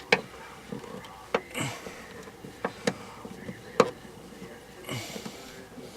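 Scattered sharp clicks and light knocks of hands handling ignition parts on a truck engine (distributor cap and spark plug wires), with two short hissing rustles.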